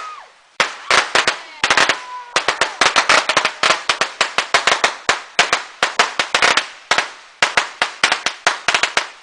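A string of firecrackers going off in rapid, irregular sharp pops, several a second, starting about half a second in.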